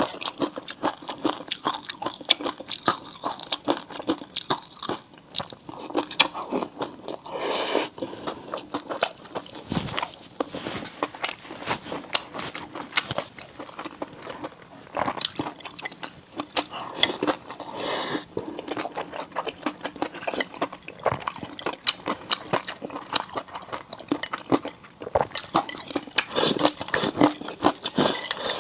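Close-miked ASMR eating: a person biting and chewing food, with a dense run of crunchy, wet mouth clicks.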